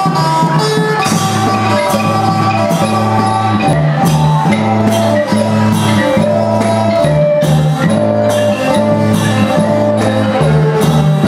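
Live Thai traditional ensemble music: a melody of held notes over a low bass line, with a drum and percussion strikes keeping a steady beat.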